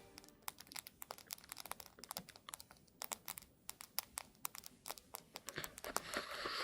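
Campfire crackling: many sharp, irregular snaps and pops, with a soft rustling hiss rising near the end.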